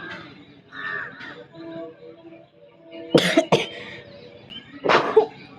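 A person sneezing: two sharp sneezes close together about three seconds in, then another near the end.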